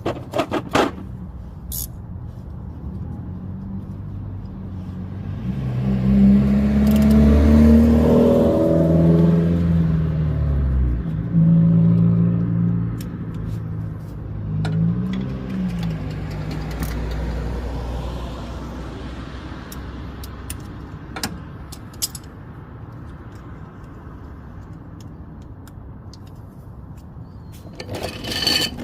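A motor vehicle engine running, loudening and rising in pitch from about six seconds in, then dropping away about eleven seconds in, with a brief smaller rise and fall a few seconds later. A few light metallic clicks come near the start and the end.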